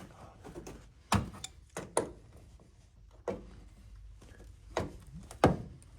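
About half a dozen irregular sharp knocks and clicks of hand tools and parts being handled against the car's metal body. The strikes come singly, the loudest about a second in and near the end.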